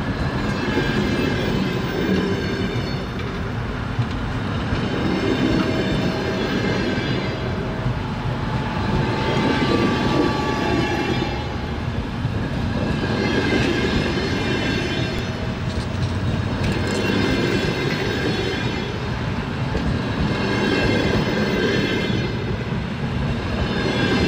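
Moving train: a steady rumble of railway carriages with wheels clattering over the rails, swelling and fading every few seconds.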